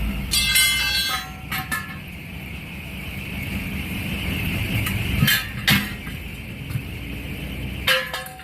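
Metal tire tools clanking against steel truck wheels, several sharp strikes that ring on: a cluster in the first two seconds, two more near the middle, and one near the end. A low engine hum runs underneath.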